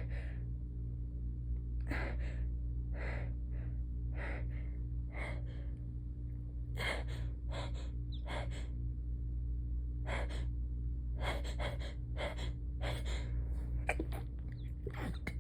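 A woman's rapid fit of stifled sneezes: short, sharp, held-in bursts coming thick and fast, often two or three in quick succession, with quick gasping breaths between them. A steady low hum lies beneath.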